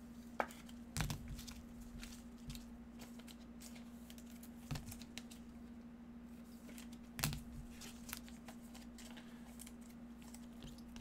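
Plastic shrink-wrap being torn and crinkled off a hobby box of 2019 Limited football cards, with a few sharp clicks and knocks of the box being handled. A faint steady hum runs underneath.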